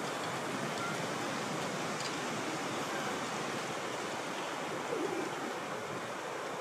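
Steady outdoor rushing noise, even throughout, with no distinct events standing out.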